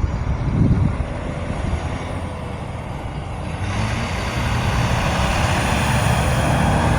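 Road traffic: a motor vehicle's engine and road noise growing louder from about halfway through as it draws near, with a dull low bump just under a second in.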